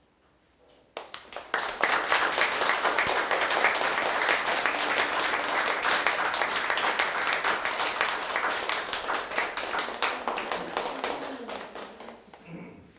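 Audience applauding: it starts about a second in, builds quickly to a dense clapping, and dies away near the end.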